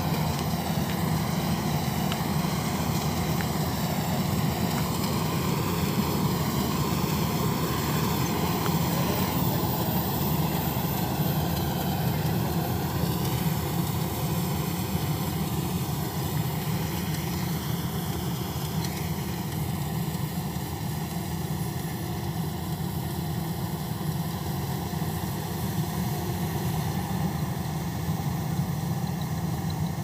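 FMWorld combine harvester's diesel engine running steadily while the machine cuts and threshes rice, a continuous mechanical drone that grows a little fainter in the last third as the combine moves off.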